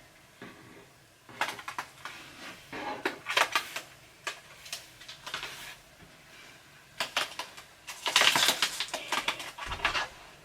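Irregular bursts of rattling and clatter from handling a parakeet's cage and carrier while transferring the bird into the cage. The clatter is heaviest and most continuous for the last few seconds.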